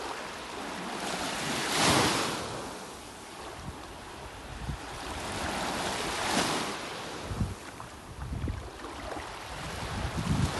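Small sea waves breaking and washing on the shore, with a swell of surf about two seconds in and again past six seconds. Wind buffets the microphone in low gusts in the second half.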